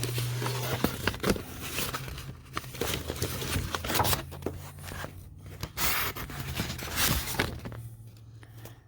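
Paper packaging rustling and crinkling as it is handled, with short scrapes and light knocks, dying away near the end.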